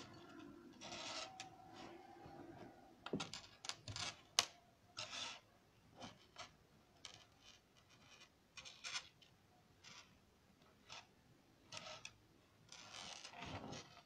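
Irregular small clicks, scrapes and rubs of thin wires and small electronic components being handled and moved on a wooden tabletop. A faint steady hum is there for the first three seconds or so.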